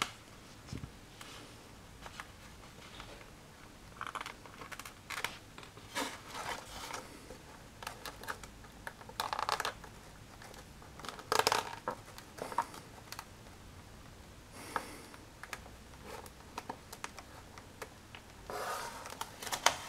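Fingers pressing and rubbing a plastic micro servo and its lead into a slot in an EPO foam wing: irregular short rubbing and scraping noises with a few small clicks, the loudest a little before and after halfway.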